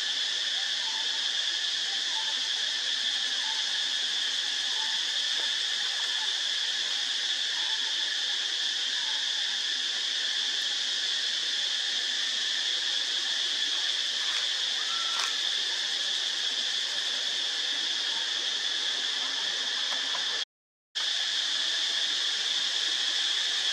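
Steady, high-pitched drone of an insect chorus in forest, unbroken apart from a brief dropout to silence near the end, with faint short chirps in the background early on.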